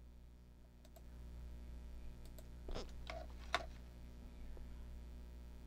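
A few faint clicks and taps, bunched together a little past halfway, over a low steady hum.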